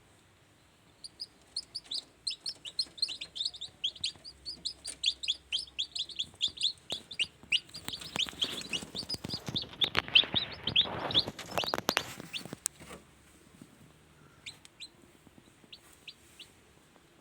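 Newly hatched kampung chicks peeping in a rapid run of short, high chirps, several a second. Partway through, a scuffling rustle with sharp clicks joins them and is the loudest part, then only a few faint peeps are left near the end.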